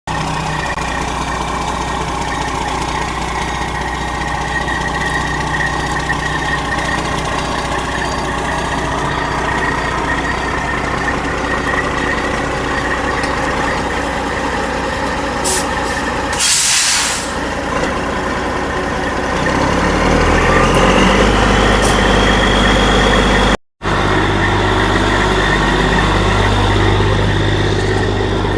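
Heavy diesel truck engine running steadily, with a sharp burst of air hiss lasting about a second just past the middle, then the engine speeding up and running faster.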